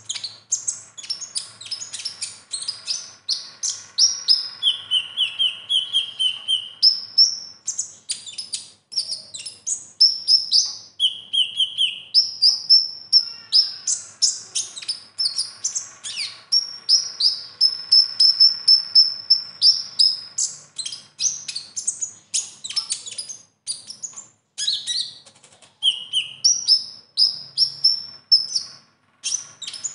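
Male Van Hasselt's sunbird (kolibri ninja) singing continuously in a fast, high run of chirps, trills and held whistles, its song laced with phrases imitated from other birds. There are a couple of short pauses near the end.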